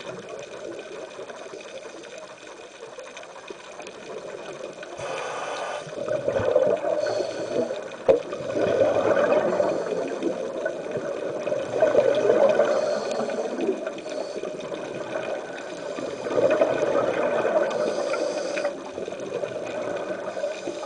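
Underwater bubbling from a scuba diver's regulator: exhaled bubbles gurgle in surges every few seconds, with a brief hiss about five seconds in.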